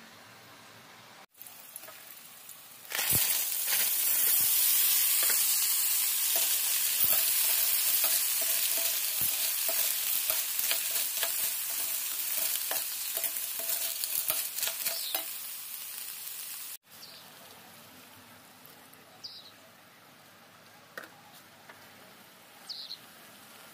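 Freshwater snails in their shells frying in a hot pan: a loud sizzle starts suddenly about three seconds in, with scattered clicks as they are stirred with a spatula. It cuts off abruptly about two-thirds of the way through, leaving a faint hiss and a few light clicks.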